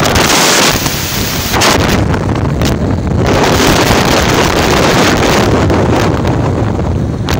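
Wind rushing over the microphone of a moving motorbike, gusting louder and softer, with a steady low engine hum underneath.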